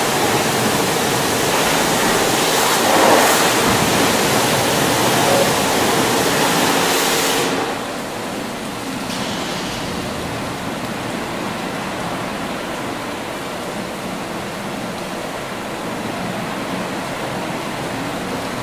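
Aquarama Stargate rollover car wash running: a loud hiss of water spray over a steady hum. The spray cuts off about seven and a half seconds in, leaving the quieter swish and whir of the spinning brushes.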